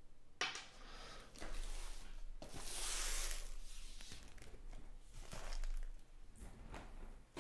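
Cardboard trading-card boxes being handled and slid across a table, a rustling scrape that swells twice, loudest about three seconds in.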